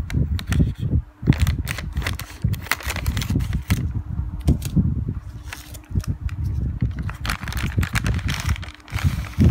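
Crinkling and crackling of a thin plastic sauce sachet handled in gloved hands, with irregular sharp crackles and soft bumps of handling.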